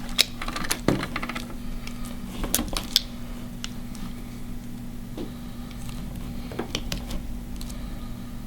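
Wire cutters snipping and stripping a thin power-supply wire: irregular sharp clicks and small snips over a steady low hum.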